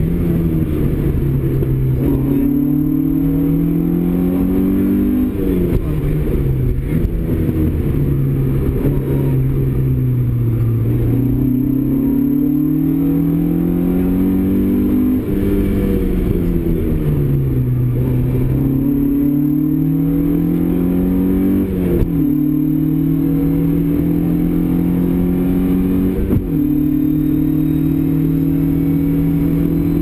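Opel Kadett GT/E rally car's engine, heard from inside the cabin, driven hard through a twisty stage. It revs up through the gears with sharp drops in pitch at each upshift, and winds down when slowing for corners, several times over.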